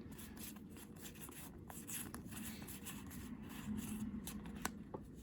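Faint rustling and sliding of Pokémon trading cards being handled, with a few soft clicks.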